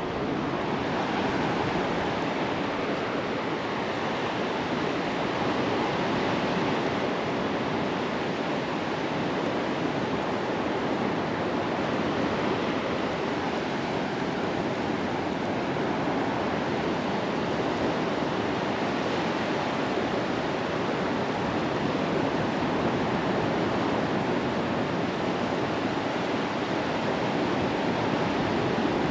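Gulf of Mexico surf and wind on the beach, a steady rush of breaking waves with no single events standing out.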